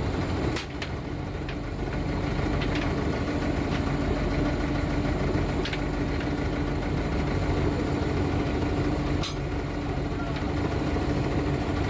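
Fishing trawler's diesel engine running steadily with a constant hum, driving the net winch while the trawl net is hauled in. A few light sharp clicks from the deck gear sound over it.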